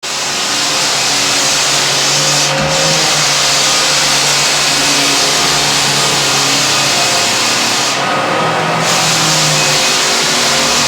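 Hardwood floor sander running steadily with its dust-extraction vacuum, a loud continuous hum under a heavy hiss that briefly thins twice.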